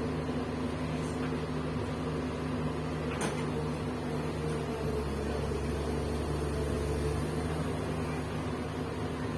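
Komatsu PC200 excavator's diesel engine running steadily, with a deeper low rumble swelling for about two seconds midway and a single short click about three seconds in.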